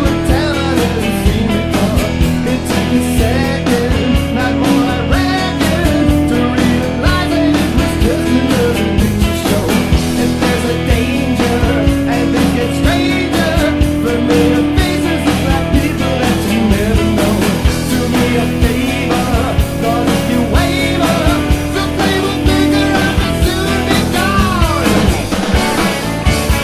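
A rock band plays in a studio recording, with drums, bass and electric guitar. Held notes run a second or two at a time over a steady drum beat.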